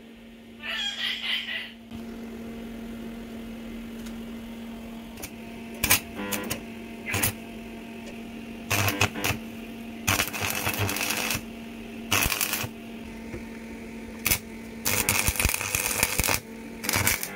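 Stick arc welding on the thin steel of a scooter chassis patch: the electrode's arc crackles and sizzles in about ten short runs, some brief and some a second or more long, stopping and restarting, over a steady low hum.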